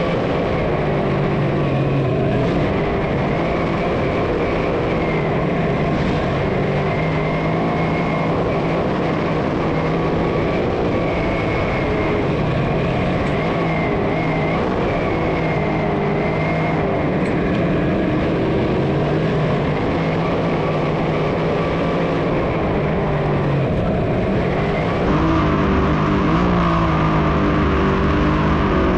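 A pack of dirt modified race cars running at speed on a restart, many engines sounding together in a continuous roar. It gets louder about 25 seconds in as the field comes closer.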